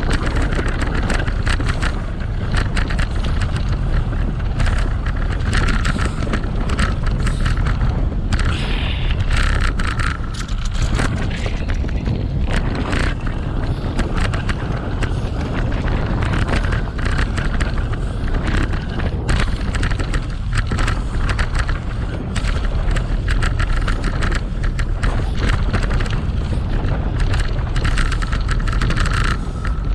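Bicycle riding over a rough, rutted dirt track: heavy wind buffeting on the microphone over tyre rumble, with constant rattles and jolts from the bumpy surface.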